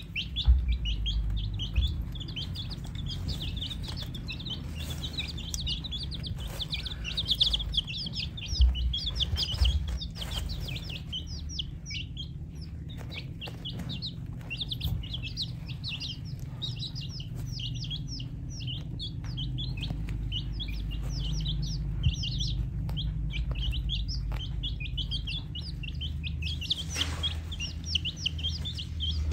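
A small flock of baby chicks peeping without a break, a dense stream of short, high, downward-sweeping chirps. Now and then a short knock sounds as they peck feed from a plastic plate, over a low rumble.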